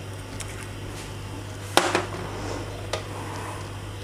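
A small bowl set down with one sharp clink about two seconds in, and a fainter tick a second later, over a steady low hum.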